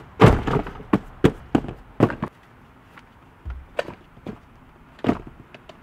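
A run of sharp knocks and thumps as a long cardboard shipping box and small items are set down on a wooden table. There are about six in the first two seconds, then a few lighter clicks, and one more thump about five seconds in.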